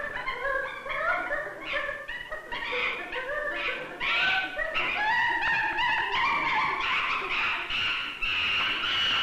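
Young chimpanzees giving a near-continuous string of high-pitched, wavering, overlapping calls: distress calls while separated from their companion.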